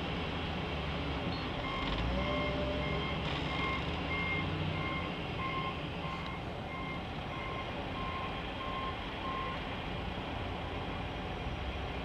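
Reversing alarm on heavy snow-clearing equipment beeping evenly, about two beeps a second, over the low rumble of engines running. The beeping stops well before the end.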